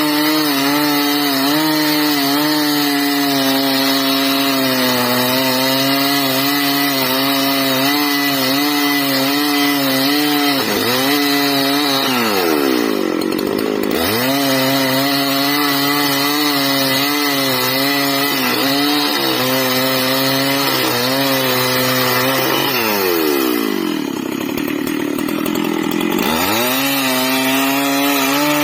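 Two-stroke chainsaw running at high, steady revs while cutting wood. Twice, about eleven seconds in and again after about twenty-two seconds, the revs drop away and climb back up.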